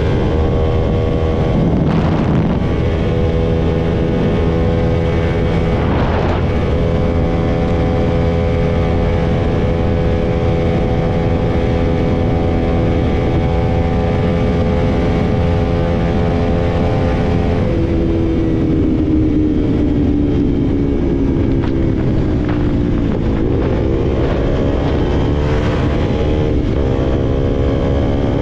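KTM RC sportbike's single-cylinder engine running hard at highway speed, with wind rushing over the microphone. Its note holds steady, sinks slowly as the bike eases off about two-thirds of the way through, then climbs again near the end. There are two brief whooshes about two and six seconds in.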